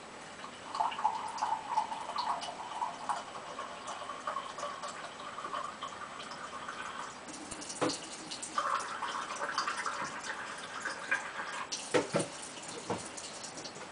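Water running from a tap into a cup in two spells, with a few sharp knocks between and after, such as the cup being set down.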